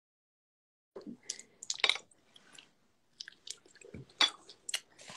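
A person chewing mango: wet, smacking mouth sounds and small clicks in irregular short bursts, starting about a second in.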